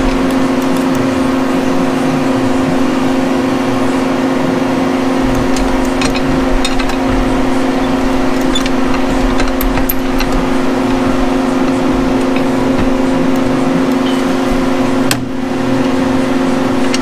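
A space heater running with a steady hum, with a few light metallic clicks and clinks from parts being handled.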